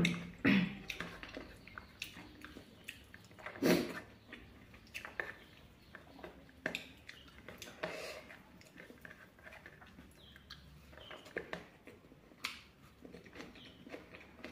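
A person chewing and eating fried pork, with irregular wet mouth clicks and smacks. There is a louder knock about four seconds in.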